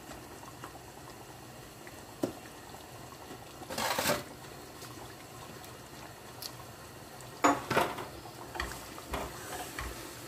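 A spoon and spatula stir thick meat and tomato sauce in a pot, knocking and scraping against it. There is a single knock about two seconds in, a short scraping rush around four seconds, and two sharp clacks followed by lighter clicks later on.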